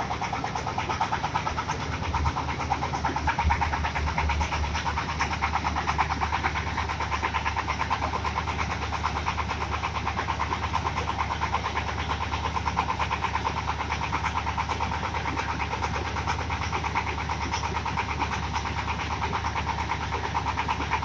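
Small diesel engine on a corn sheller machine, running steadily with a fast, even clatter.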